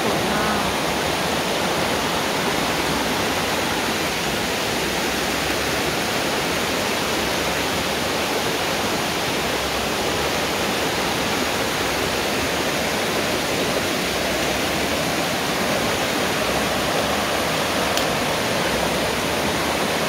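Waterfall rushing steadily, a continuous even roar of falling water.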